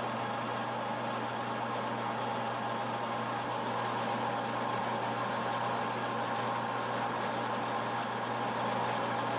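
Metal lathe running steadily while a boring bar cuts inside the spinning turbocharger compressor housing, boring it out to fit a larger billet compressor wheel. A higher hiss joins about five seconds in and drops away briefly near the end.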